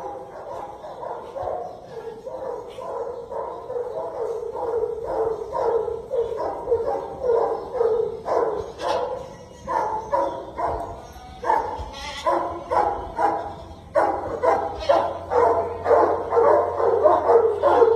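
Goat-herding dog barking rapidly and without a break, a few short barks a second, growing louder toward the end.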